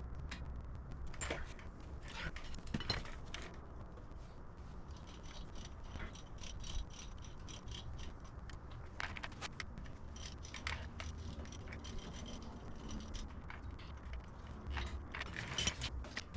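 Scattered light metallic clinks and scrapes of hand tools and wheel hardware being handled, some with a brief ringing tone, over a low steady rumble.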